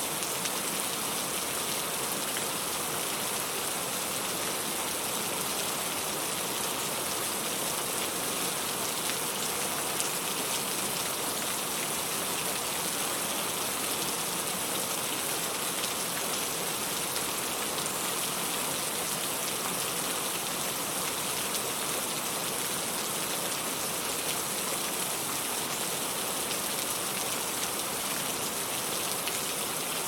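Steady rain falling, an even hiss with no changes in level.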